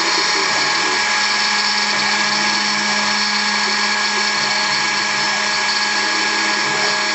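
HobbyCNC router's spindle running steadily while milling a guitar pickup part, a constant motor whine with several steady tones over cutting noise.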